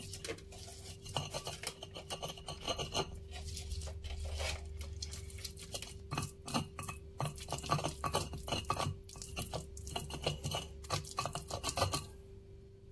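Stone pestle grinding fried shallots and garlic into a paste in a stone mortar (cobek): a run of quick scraping, knocking strokes of stone on stone that stops near the end.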